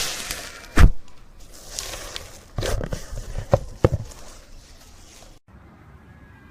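Slime being slapped and squished by hand: a loud smack about a second in, then a run of wet smacks and pops a couple of seconds later, fading out and dropping suddenly to quiet near the end.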